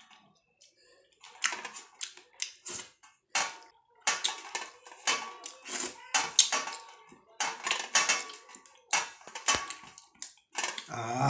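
Close-up eating sounds from eating by hand: wet smacking and slurping as fingers are licked clean, and fingers scraping food off a stainless steel plate. They come as a quick, uneven run of short noisy bursts that starts about a second in.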